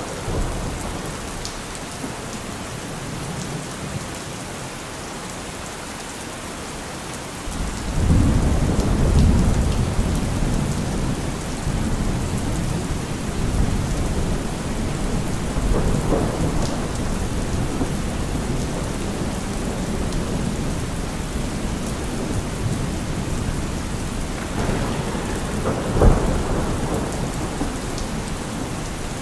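Steady heavy rain with thunder. A deep rolling rumble of thunder comes in about eight seconds in and keeps going, and a sharper, louder thunderclap cracks near the end.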